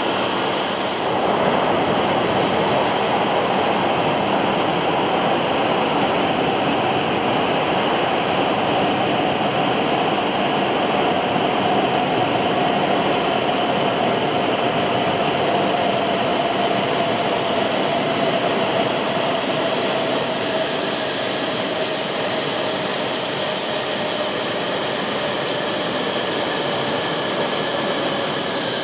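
Shinkansen train moving along the platform: a loud, steady rushing rumble with a faint tone that slowly falls in pitch.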